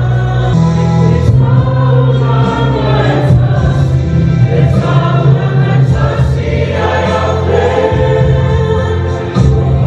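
A choir of mixed voices singing a song over an accompaniment with a steady, strong bass line.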